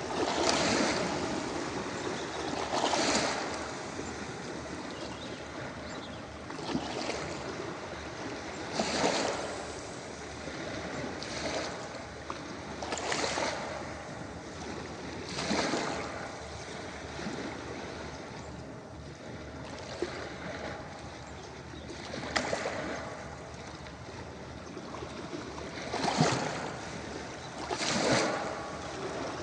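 Ocean waves breaking and washing on a beach, each wave swelling up over the continuous hiss of the surf every two to four seconds.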